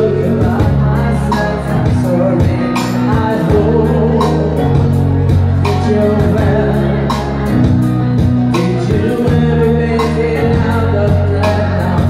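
Live amplified music: a singer at a microphone over keyboard accompaniment, with deep held bass notes and a steady beat.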